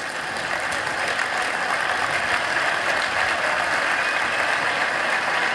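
Large audience applauding, a dense, steady clapping that grows louder over the first couple of seconds.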